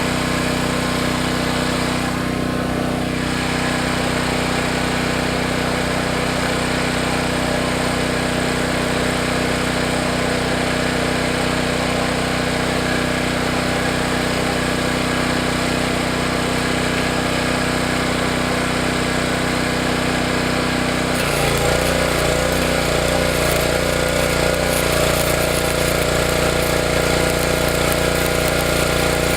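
Stick welding cast iron with a Hobart Stickmate arc welder and a 1/8-inch 7018 rod: a steady crackle and hiss from the arc over the machine's hum. The sound changes about 21 seconds in.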